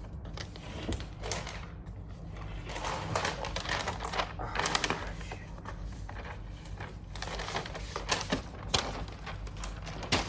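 Irregular light clicks, taps and rustling from a new MacBook Pro laptop being handled, over a steady low hum.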